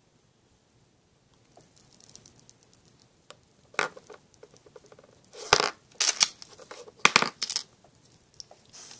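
Small plastic lip gloss tubes clicking and clattering as they are handled: first a run of quick light clicks, then several louder knocks and scrapes.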